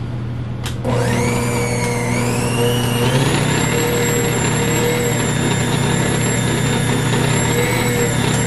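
Nutrimill Artiste bottom-drive stand mixer starting up about a second in, its motor whine climbing in two steps as it comes up to speed, then running steadily while it mixes a stiff flour-and-oat dough in the covered bowl.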